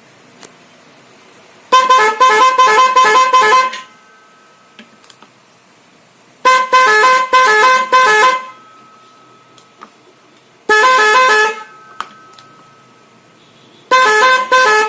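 Aftermarket trumpet air horn on a Royal Enfield motorcycle sounded in four blasts of one to two seconds each, every blast warbling quickly between two pitches, about five steps a second.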